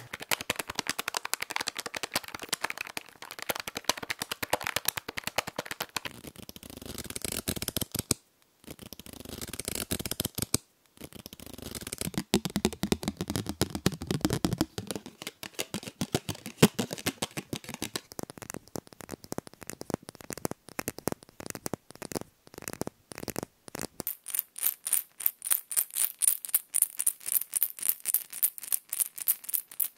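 A string of short, close-up ASMR trigger sounds, mostly quick tapping, clicking and rattling, changing every few seconds. In the last six seconds a plastic medicine bottle is shaken, its tablets rattling in a fast, even rhythm.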